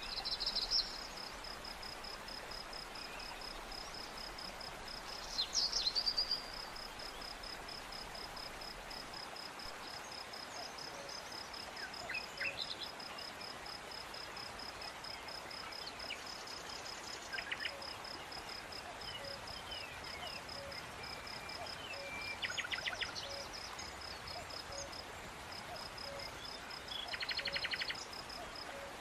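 Insects chirping: a steady, evenly paced high chirp throughout, with short louder trills every few seconds.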